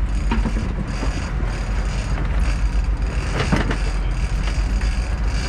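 Sportfishing boat's engine running in neutral with a steady low rumble.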